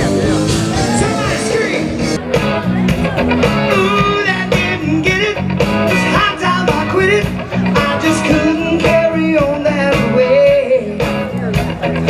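Live rock band playing through stage PA speakers: a man singing over electric guitars, bass and drums.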